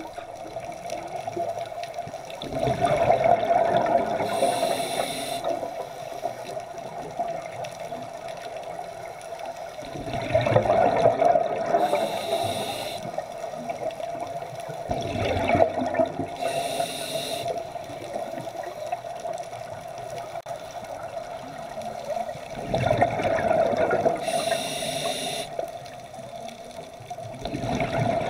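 Underwater scuba breathing through a regulator: bursts of exhaled bubbles every few seconds, most followed by a short hiss, over a steady underwater hum.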